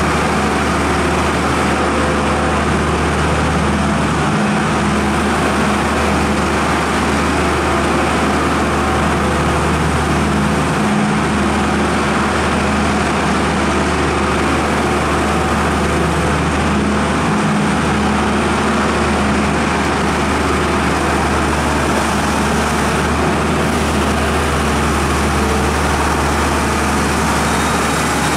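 Hyundai R2200LC-3 crawler excavator's diesel engine running steadily, a continuous low hum.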